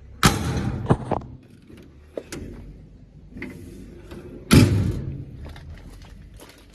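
Two loud thuds about four seconds apart, with lighter clicks between them, over a low steady hum.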